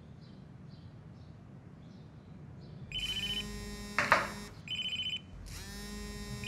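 A mobile phone ringtone starts about three seconds in: a repeating phrase that alternates a high beeping tone with a ringing chime. About a second after it starts, a single short loud cry cuts in.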